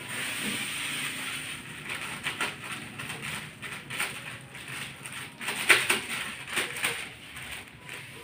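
Contents of plastic bags being emptied into a large metal wok. The plastic crinkles and rustles, with scattered clicks and knocks from handling; the loudest knock comes about two-thirds of the way through.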